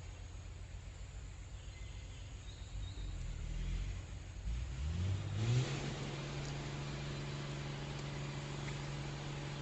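An engine revs up about five seconds in, rising in pitch, then runs on at a steady low hum, over a low rumble.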